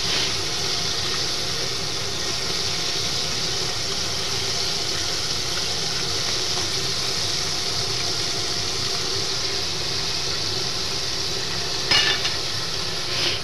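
Chicken pieces deep-frying in a pot of oil: a steady sizzle. A brief clatter near the end.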